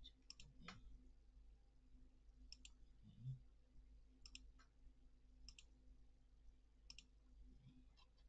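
Faint computer mouse button clicks, each a quick press-and-release pair, about seven of them at uneven gaps of one to two seconds, over a low steady hum. One soft low thump about three seconds in.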